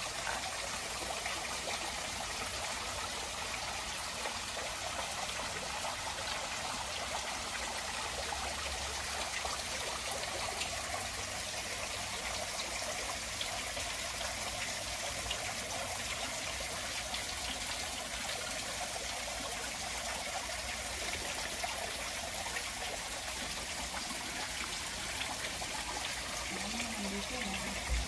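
A small waterfall trickling down a rock face and splashing into a shallow pool: a steady rush of falling water.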